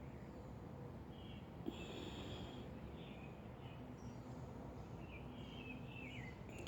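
Small birds chirping faintly, short high calls repeating every second or so, some slurring downward, over a steady low outdoor rumble.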